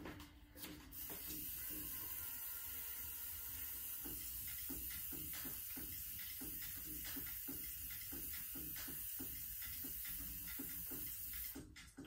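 Hand-held spray bottle misting a canvas: a steady hiss that starts about a second in and stops just before the end.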